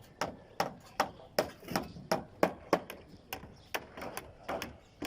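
Hammering on wooden formwork: a run of sharp, uneven hammer blows, about three a second, as nails are driven into the boards.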